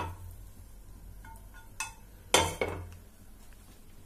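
Metal clinks and knocks of a nonstick frying pan being handled on a gas stove's grate: a knock at the start, a few small ringing clinks, then a louder knock about two and a half seconds in.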